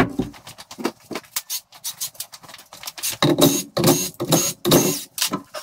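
Car jack being pumped to lift a car: a run of metallic clicks and clanks, with heavier strokes coming about twice a second in the second half.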